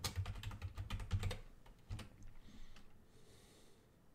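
Computer keyboard typing: a quick run of keystrokes for about a second and a half, then a few single key presses.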